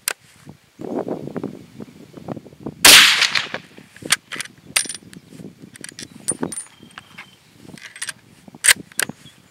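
A single shot from a Zastava M85 bolt-action rifle in 7.62x39mm about three seconds in: the round, primed with a salvaged large rifle primer, fires. It is followed by several sharp metallic clicks and light rings of the bolt being worked to eject the case and chamber the next round.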